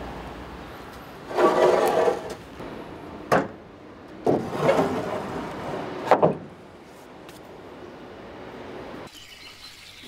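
Sawn timber planks sliding over each other as they are pushed onto a trailer bed: two scraping slides, each ending in a sharp wooden knock.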